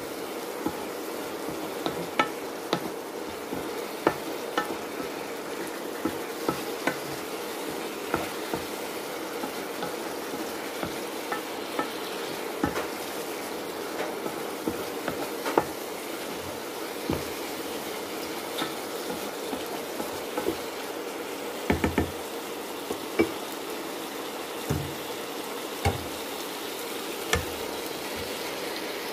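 Onions, tomatoes and chillies sizzling steadily in a frying pan while a wooden spatula stirs them, with frequent short knocks and scrapes of the spatula against the pan.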